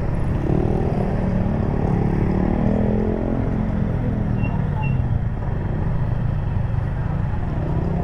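Honda Click scooter engine running on track, with a steady low rumble of wind and road. The engine pitch rises and falls as the throttle is opened and eased, about a second in and again near the end.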